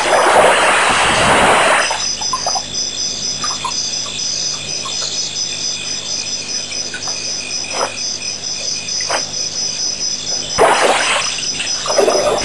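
African elephant drinking at a waterhole: two rushes of splashing water from its trunk, one lasting nearly two seconds at the start and another from about ten seconds in. Crickets chirp in a steady pulsing rhythm throughout.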